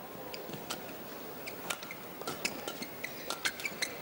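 Badminton rally: a string of sharp, irregular racket hits on the shuttlecock, with short squeaks of players' shoes on the court between them.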